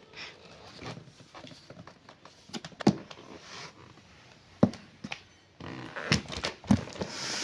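Unpacking handling noise: a few scattered knocks and thuds as items and packaging are moved, then a steady rubbing or scraping from about five and a half seconds in.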